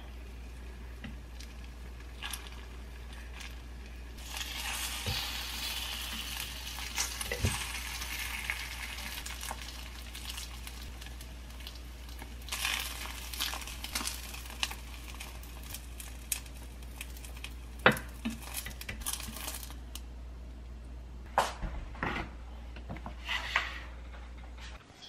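Egg-coated gimbap slices sizzling in a frying pan, the sizzle swelling about four seconds in and again around twelve seconds, with wooden chopsticks and ceramic dishes clicking and knocking; the loudest knock comes about eighteen seconds in. A low steady hum runs underneath.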